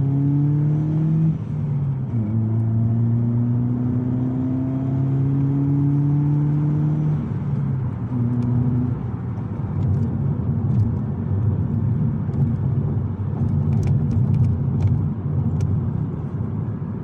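Vauxhall Astra H's 1.6 four-cylinder petrol engine and F17 manual gearbox heard from inside the cabin while driving. The revs rise, drop at a gear change about two seconds in, and climb again, then it settles into steady cruising with road noise. The gearbox has just been topped up with oil, and its whine is now only slight.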